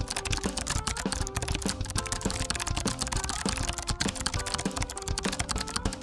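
Rapid, irregular computer-keyboard typing clicks, a typing sound effect matching on-screen text being typed out, over background music with held notes.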